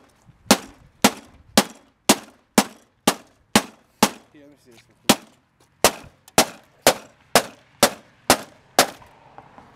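Claw hammer striking the rear casing of a flat-screen TV again and again, about two sharp hits a second with a short ring after each and a brief pause near the middle.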